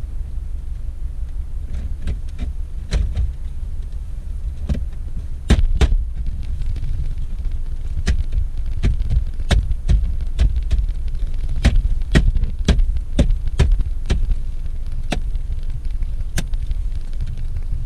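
Plastic dashboard trim panels around the car radio being pushed and snapped back into place: a run of sharp clicks and knocks, irregular, over a steady low rumble.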